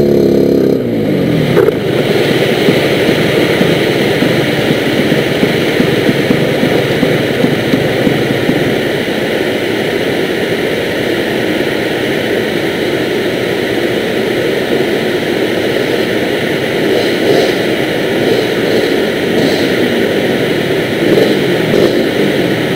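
Two-stroke kart engine note falling as the kart coasts in off the throttle, dying away about a second in, followed by a steady loud noisy rumble with no clear engine pitch.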